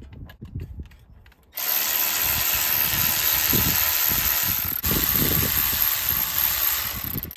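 Handheld cordless power tool driving a socket on a truck's front wheel hub. It runs steadily from about a second and a half in, with a brief break in the middle, and stops just before the end. Before it starts there are a few quiet knocks of handling.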